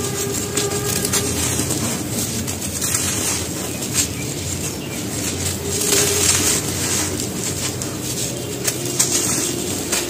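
Bare hands crushing dry, dusty cement slab chunks into powder: continuous gritty crunching and rustling, with sharper crackles about four, six and nine seconds in as pieces snap.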